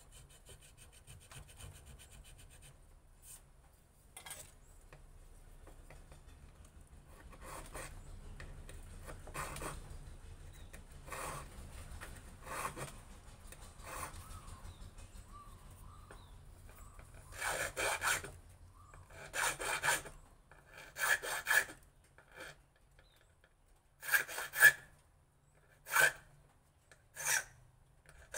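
Hand-tool scraping on wood: faint, quick scraping as a pattern is cut into a wooden knife handle, then about ten louder separate scraping strokes in the last ten seconds, roughly one every second and a half.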